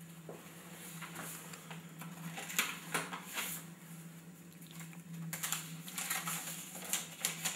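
Paper rustling as an envelope is opened and a letter drawn out and handled, in short bursts about two and a half seconds in and again from about five seconds on, over a steady low hum.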